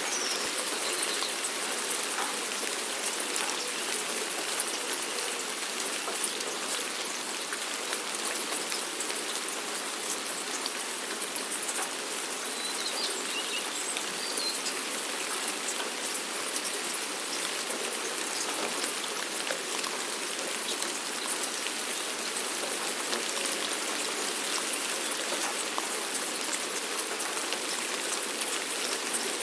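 Steady rain falling: an even, continuous hiss of countless small drops striking surfaces.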